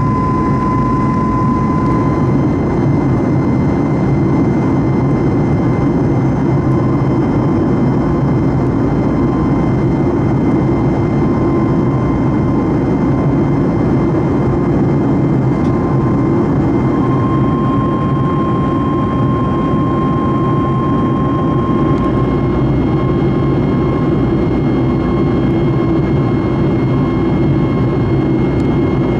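Steady cabin drone of a Boeing 737 MAX 8 cruising at flight level 240: a deep rumble of engine and air noise with the CFM LEAP-1B engines' thin steady whine on top.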